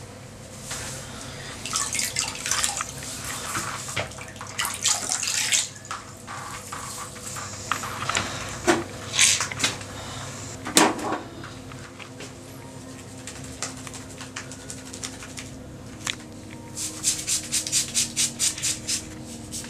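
Water from a bathroom sink tap splashing as hands move under it, in uneven bursts, with a sharp clink about halfway through and a quick run of short strokes near the end.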